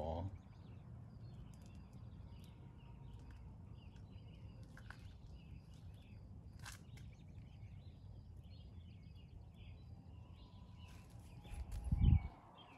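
Faint outdoor chorus of small animals chirping over a low steady rumble, with a short dull thump near the end.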